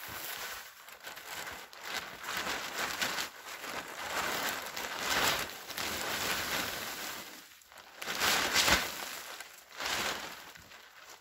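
A snow-covered tarp being pulled and dragged off, its sheeting rustling and crinkling in waves as snow slides and falls off it, loudest about halfway through and again later on.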